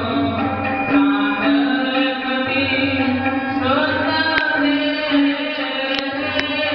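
Sikh devotional kirtan: chanting over steady, sustained instrumental notes, with a few sharp clicks in the second half.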